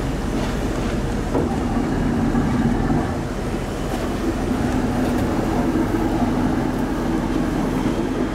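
Ferry's engine running with a steady low drone.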